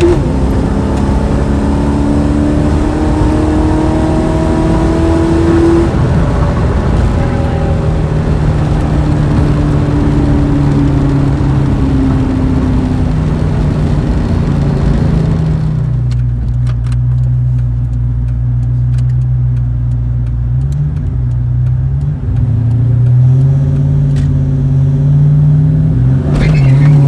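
Ford Mustang GT 5.0 V8 with headers, X-pipe and Flowmaster 40 series mufflers, pulling hard and rising in pitch through the gears, with shifts about six and twelve seconds in. It then settles to a steadier, lower drone for about ten seconds and revs up again near the end.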